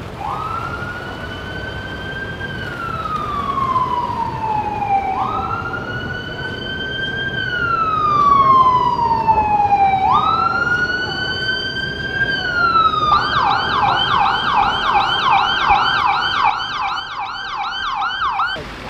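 Emergency vehicle siren sounding: three slow wails, each rising quickly and falling slowly over about five seconds, then a switch to a fast yelp about two-thirds of the way through, which cuts off abruptly near the end.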